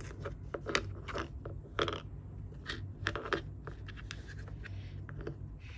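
Small metal 1/4-inch sewing-machine presser feet being flipped over and moved about on a cutting mat: scattered light metallic clicks, taps and scrapes.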